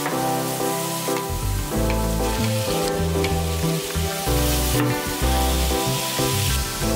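Diced Spam, green onion and chopped kimchi sizzling in hot oil in a frying pan, stirred with a wooden spatula.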